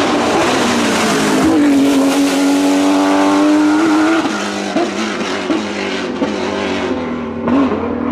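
Porsche 911 GT3 race car's flat-six engine at high revs under full throttle, driving past. The pitch climbs and holds high, then drops about four seconds in as it shifts up, and wavers through further gear changes as the car pulls away.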